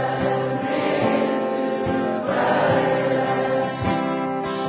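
Live band music with choir-like sung backing vocals, holding steady chords at the end of a comic pop song.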